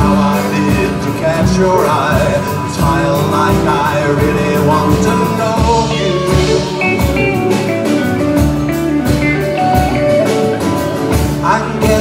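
Live band jam: acoustic rhythm guitar, electric guitar, bass and drum kit with violin, playing a steady beat.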